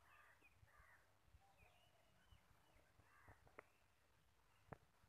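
Near silence: faint rural outdoor ambience with a few faint, distant bird chirps and a couple of soft clicks.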